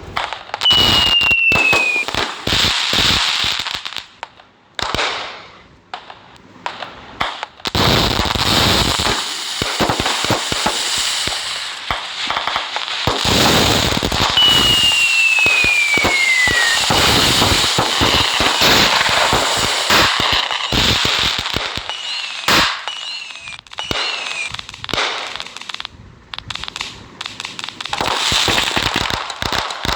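Diwali firecrackers and fireworks going off, with long runs of dense crackling and popping. Several clear whistles fall in pitch, one long one near the middle and a few short ones later.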